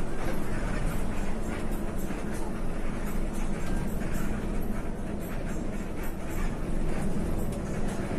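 Intercity bus on the move, heard from inside near the driver: a steady low engine drone with road noise.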